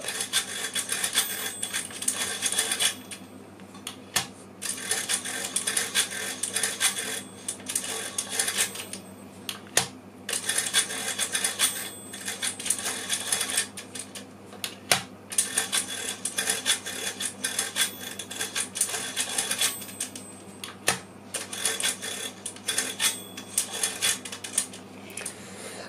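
Monroe LN160X stepped-drum mechanical calculator being hand-cranked through a division by repeated subtraction: runs of rapid mechanical clicking and clatter from the turning handle and stepping drums, each a second or two long, with short pauses between runs.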